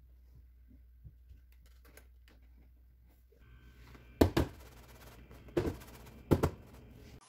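Clear clip-lock plastic food container handled on a countertop: faint light taps at first, then three sharp plastic clicks in the second half, each a little over a second apart.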